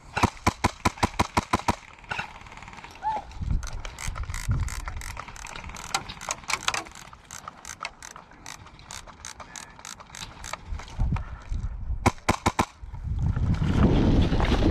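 Airsoft gun firing: a fast string of sharp clicking shots, about seven a second for two seconds, then scattered single shots, and another short burst about twelve seconds in. Near the end, a loud rush of wind or handling noise on the microphone takes over.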